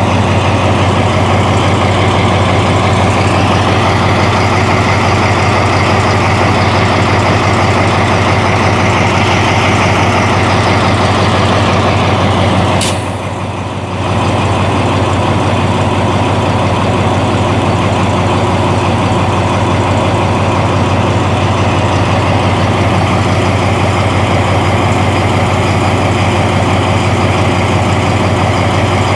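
Alsthom AHK diesel-electric locomotive's engine idling close by: a loud, steady drone with a deep hum. About 13 seconds in it dips quieter for about a second, then carries on as before.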